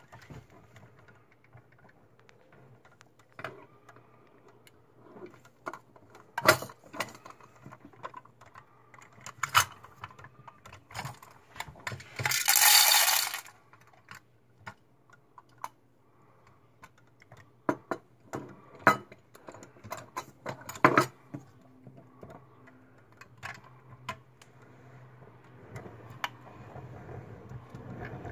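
Scattered plastic clicks and knocks of a toy front-loader garbage truck and toy dumpster being handled and rolled on a wooden floor, over a low steady hum. About twelve seconds in there is a loud hiss lasting about a second and a half.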